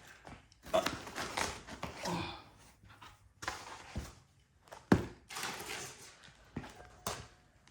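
Loose parts being rummaged through and handled: rustling with scattered taps and knocks, the sharpest knock about five seconds in.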